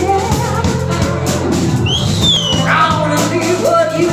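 Band playing a rock song: a drum kit keeps a steady beat under sustained pitched parts, with a singer's ad-lib vocal sliding up and down about two seconds in.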